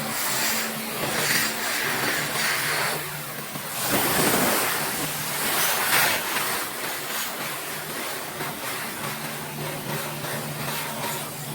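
Gas-engine pressure washer running with a steady low hum under a broad hiss of spraying water, the hiss swelling and easing as the spray moves.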